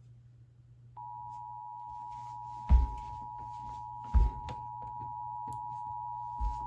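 Emergency Alert System two-tone attention signal: a steady dual-tone alarm that starts about a second in and holds over a low hum. Three heavy low thumps break in, near the middle and again near the end.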